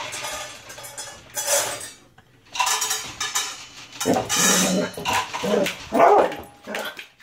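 Several short bursts of clattering, like dishes and food containers being handled, followed about four seconds in by a hound 'talking': a run of rising and falling vocal calls lasting about two seconds.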